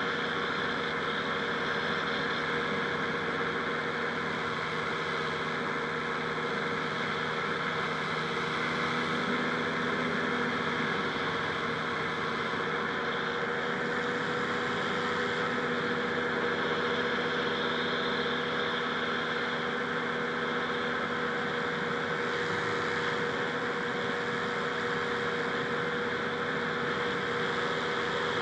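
Rotax 582 two-stroke twin engine of a powered parachute running at a steady speed, with no change in pitch or level.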